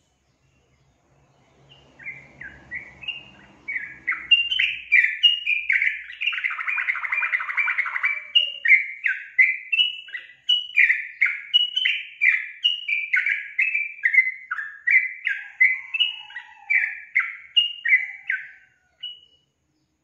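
Yellow-vented bulbul singing: a long run of short, quick chirping notes, about two a second, starting about two seconds in and stopping near the end, with a denser burst of twittering in the middle.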